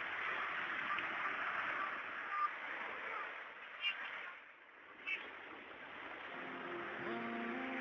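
Surf breaking and washing up a shingle beach, with two short calls a little over a second apart midway. Music with held notes comes in near the end.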